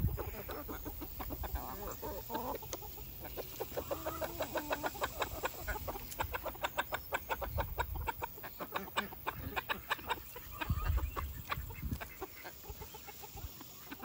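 A flock of chickens clucking as they feed, short clucks coming several times a second from many birds at once, with a few longer, drawn-out hen calls in the first few seconds.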